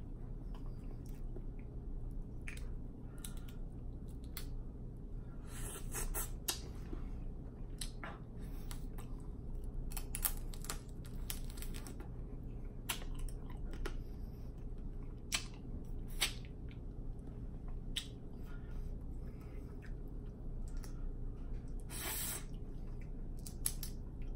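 Snow crab leg shells being cracked and snapped apart by hand, sharp irregular cracks and clicks, some in quick clusters, between quiet chewing of the crab meat.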